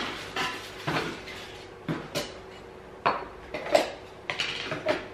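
Small cardboard box being opened and handled by hand, with a string of irregular sharp knocks and rustles as the flaps are worked and the ceramic container inside shifts.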